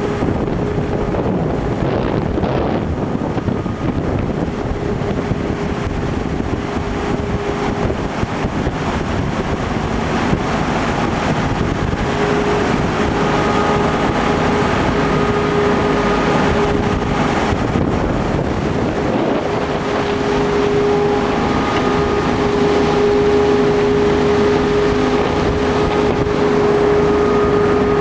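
Tour boat's engine running steadily, heard from the open stern: a constant hum that grows stronger about twelve seconds in, under the rush of the wake and wind buffeting the microphone.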